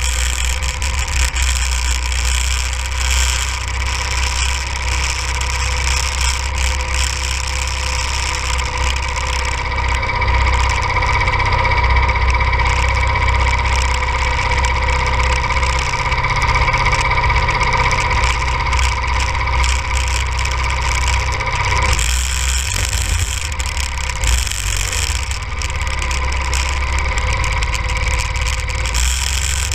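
Go-kart's small engine running while driving on snow. A strong low rumble of wind on the helmet-camera microphone runs underneath. The engine holds a steady pitch through the middle and changes about two-thirds in.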